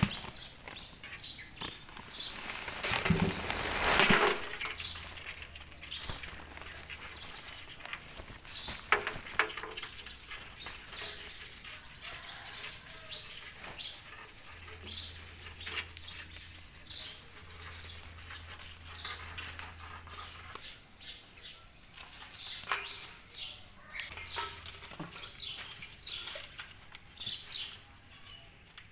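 Cloth rustling as it is pulled off a metal tub, then a heap of small fish and shrimp flicking and flapping inside it, with short, high chirps scattered throughout.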